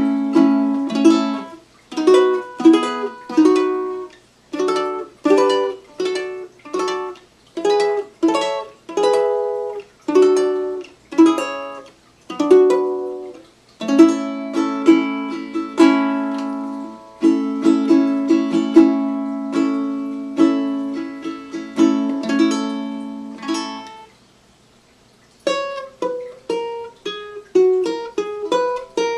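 Handmade tenor ukulele with a Western Red Cedar top and Dalbergia granadillo back and sides, played as a sound sample: strummed chords, then after a short break near the end, single plucked notes.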